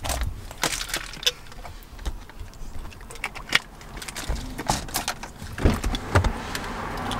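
Scattered clicks, taps and rustles of small objects being handled inside a pickup truck's cab, coming at an irregular pace.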